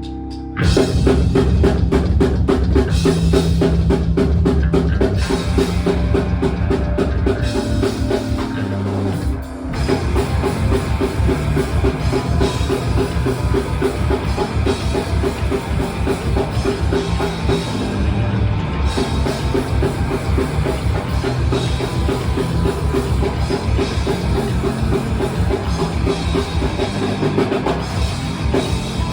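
Rock band playing an instrumental intro live, drum kit and guitars, with a brief break a little before ten seconds in.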